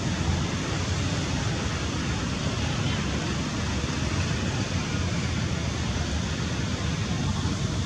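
Wind buffeting the microphone outdoors: a steady rushing hiss over a fluttering low rumble, with no distinct sounds standing out.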